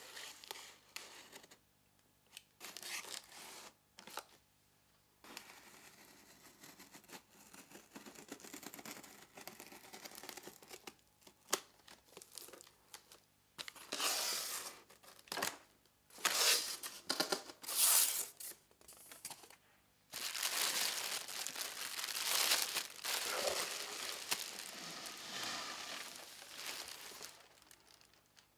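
Cardboard shipping box being opened: a utility knife cuts through the packing tape, then the cardboard flaps are pulled open and the cardboard scrapes and rustles in irregular bursts. The loudest rasping bursts of cardboard sliding and tearing come in the second half.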